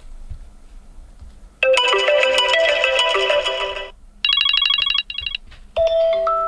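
iPhone 14 ringtones previewed through the phone's speaker: three different melodic tones play in turn, starting about a second and a half in, and each stops abruptly before the next begins.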